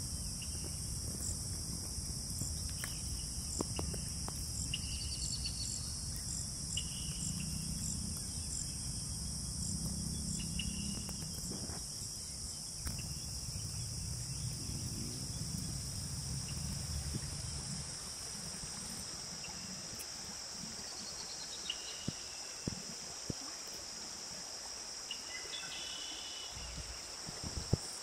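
Steady high-pitched chorus of crickets or similar insects in garden vegetation, with a few short bird chirps. A low rumble runs beneath it and eases off about two-thirds through, and there are a few faint clicks near the end.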